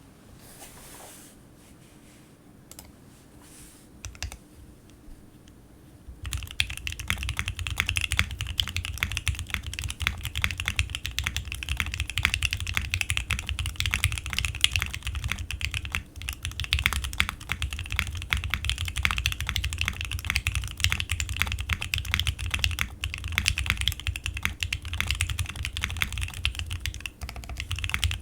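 Fast, continuous typing on a SINGA Unikorn 2.1 custom mechanical keyboard with lubed, filmed Alpaca linear switches on an FR4 plate and GEEKARK keycaps. Only a few faint ticks come in the first six seconds, then a steady stream of rapid keystrokes begins and runs on.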